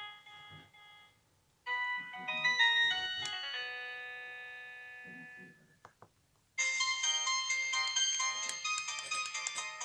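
Samsung E1202i mobile phone playing its built-in tones through its small speaker. One tone ends about a second in, and after a short gap a chiming melody plays whose notes ring on and fade away. Then come a couple of clicks, and a brighter, busier ringtone starts about two-thirds of the way through.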